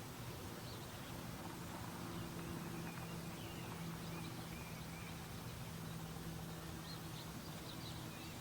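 Faint outdoor ambience: scattered short, high bird chirps over a steady low hum and hiss.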